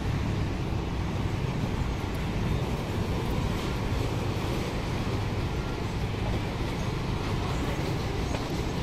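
Steady low rumble of harbour ferries' diesel engines running at the pier, with general waterfront noise over it.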